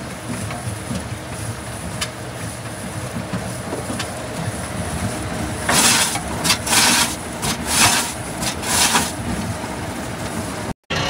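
Compact electric tumble dryer running: a steady rumble with light clattering from the drum. Four or five loud hissing rushes come a little past halfway.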